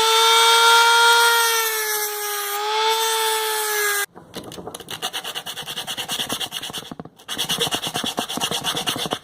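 A small high-speed motor tool running with a steady whine that dips slightly under load and cuts off about four seconds in, while the square parts of plastic keyboard keycaps are removed. Then rapid back-and-forth scraping strokes, as of hand filing or sanding the keycaps, with a short pause partway through.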